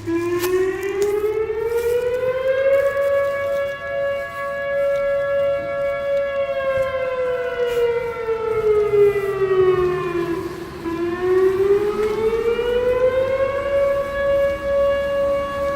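Two fire station sirens wailing. The pitch climbs over about three seconds and holds high, sinks slowly to a low point about two-thirds of the way through, then climbs and holds high again.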